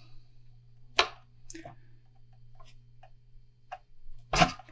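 Single-edge razor blade scraping and ticking against the cured epoxy finish of a fishing rod blank as the decal under it is cut away: a sharp click about a second in, a few faint ticks, and a louder, longer scrape near the end.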